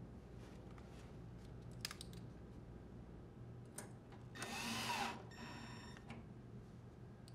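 A drill driver whirs briefly about halfway through, driving in a screw that fastens the dryer's thermostat, then a fainter tone from it dies away. A few light clicks of parts being handled come before it.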